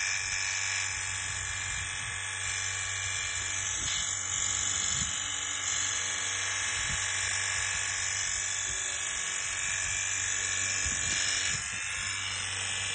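Portable high-pressure car wash water gun running steadily: its small electric pump motor whining and the water jet hissing as it sprays against the car's side.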